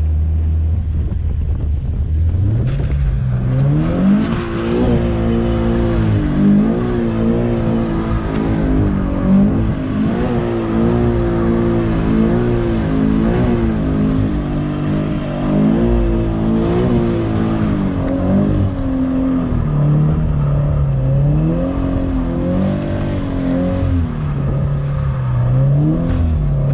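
Car engine revving hard through a tire-killer donut. It is low for about two seconds, then climbs sharply and stays high, the revs rising and falling again and again as the throttle is worked.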